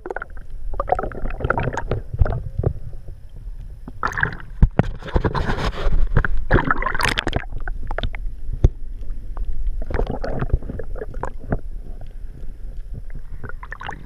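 Muffled water sound picked up by a camera held just below the surface: a low rumble and gurgling with many scattered clicks and knocks, and louder sloshing and splashing about four to seven seconds in.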